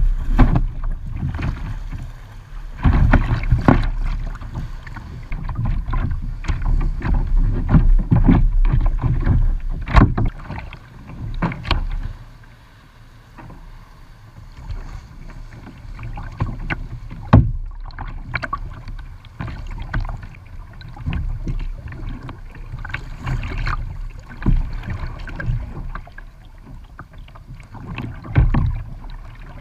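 Water splashing and sloshing around a plastic kayak's hull, with wind rumbling on the microphone. It is louder for the first dozen seconds, then turns quieter, with the repeated splash of a double-bladed paddle dipping on each stroke.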